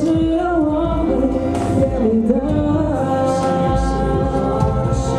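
A man singing a song live into a handheld microphone, with instrumental accompaniment.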